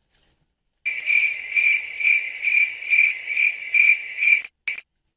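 Cricket-chirping sound effect: a shrill, steady chirping that pulses about twice a second, starting abruptly about a second in and cutting off suddenly near the end, with one short chirp after.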